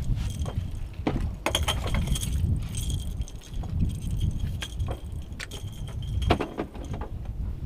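Light metallic clinking and a scatter of knocks as fishing tackle is handled while unhooking a catch in the boat, over a steady low rumble of wind and water.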